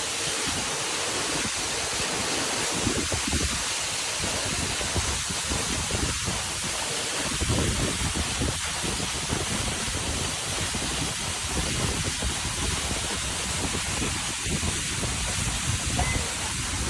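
Steady rush of water, as from a waterfall or fast river, with irregular low rumbles of wind buffeting the microphone.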